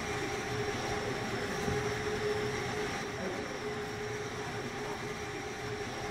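Steady mechanical hum and rushing noise with a constant mid-pitched tone and a faint high whine, unchanging throughout.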